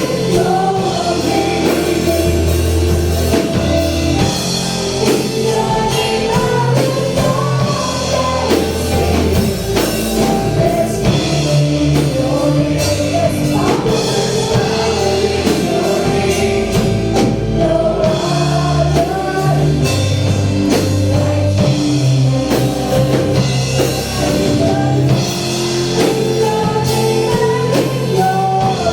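Gospel praise and worship music: a band with drums, bass and guitar plays steadily while voices sing the melody.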